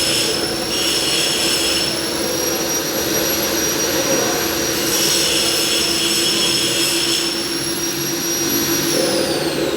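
Milling machine running with a steady high-pitched spindle whine over a low hum; near the end the whine starts to fall in pitch as the spindle winds down.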